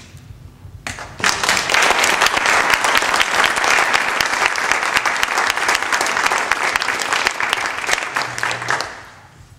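Audience clapping, starting about a second in, holding steady and dying away near the end.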